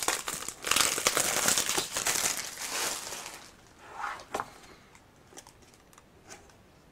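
Packing paper crinkling and rustling as a hand rummages in a cardboard shipping box, for about three seconds, then a few soft rustles and taps.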